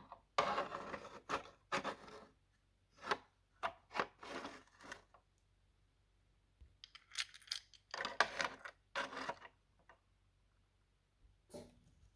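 Small plastic pieces of a toy playset being handled, clattering and rubbing in a series of short bursts with brief pauses between.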